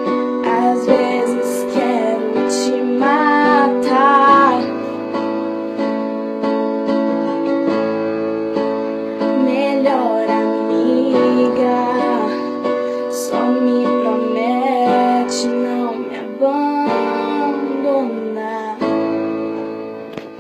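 Instrumental outro of a pop ballad: held keyboard chords under a melody line, fading out near the end.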